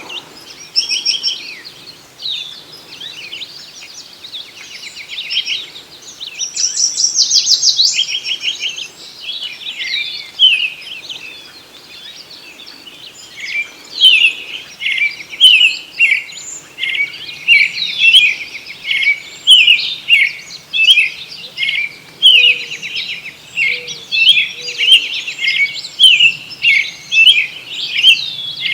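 Songbirds singing and calling in a dawn chorus of overlapping chirps and short phrases. A loud rapid trill comes about seven seconds in, and from about halfway on a bird sings a steady run of quick repeated chirps.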